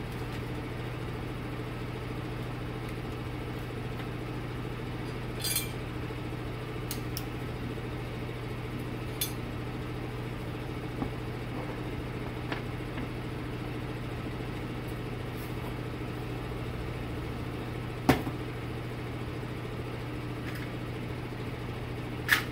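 A handful of light metallic clicks and clinks as small valve parts are handled and set into the bores of an aluminum 4L60E transmission valve body, the sharpest about 18 seconds in and another just before the end, some with a brief high ring. A steady low mechanical hum runs underneath.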